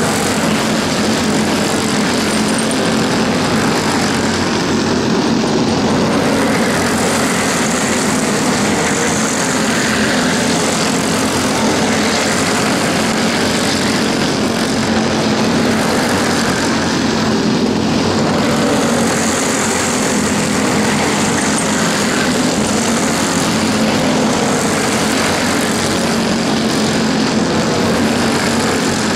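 Racing go-kart engines running at speed, a steady loud buzz with a slight wavering in pitch and no let-up.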